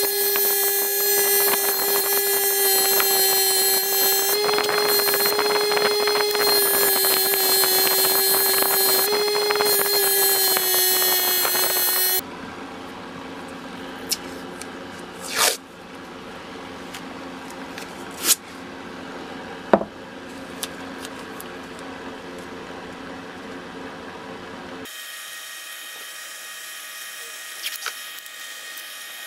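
Bench grinder with a buffing wheel running with a steady hum while a steel cleaver blade is polished against it; the hum cuts off about twelve seconds in. After that come quieter handling and rubbing sounds with a few sharp clicks and a short swish.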